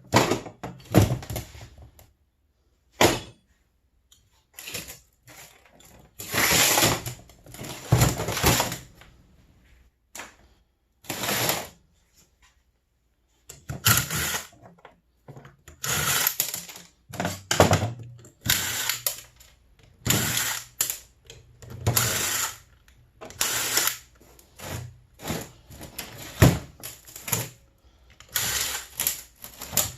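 A power tool run in short bursts of about a second, stopping and starting many times over.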